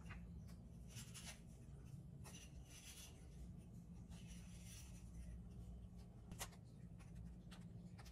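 Faint, scattered light scrapes and soft taps of Marías biscuits being handled and set down into a creamy layer in a glass baking dish, with one sharper click about six seconds in, over a low steady hum.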